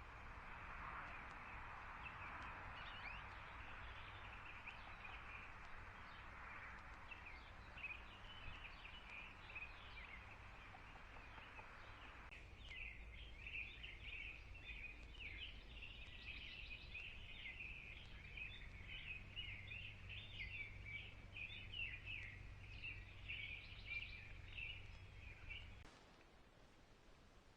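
Birds chirping and calling in a dense run of short high notes, over a faint low steady hum. The sound changes abruptly about twelve seconds in and again near the end.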